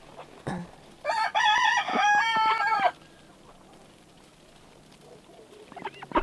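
An Icelandic rooster crowing once: a single drawn-out call of about two seconds, starting about a second in.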